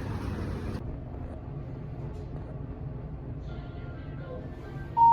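Low rumble of a vehicle in motion that cuts off under a second in, leaving a quieter low hum with faint music. Near the end comes a single loud electronic beep that rings out and fades over about a second.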